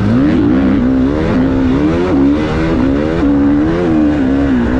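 GasGas MC450 four-stroke single-cylinder motocross engine under load, its pitch rising and falling repeatedly as the throttle is opened and rolled off through a run of corners.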